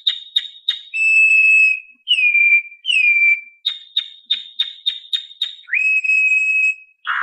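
Background music with a whistle-like lead. It holds steady notes and slides down into them, and later slides up into one, between runs of quick high ticks at about three a second.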